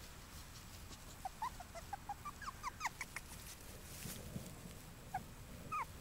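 Five-week-old puppy whimpering: a run of short, high yelps that drop in pitch, starting about a second in and thinning out, with two more near the end.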